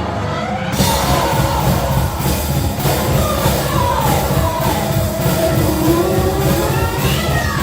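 A band playing loud rock live, with a sung and partly shouted vocal. Less than a second in, the sound suddenly fills out in the high end as the full band comes in.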